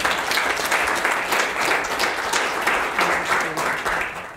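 Audience applauding: dense, steady clapping that stops abruptly near the end.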